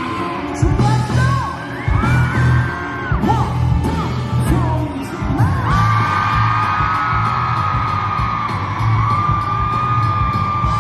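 Live pop-rock band music with a steady beat and a melodic lead line that settles into one long held note about halfway through, with audience yells and whoops.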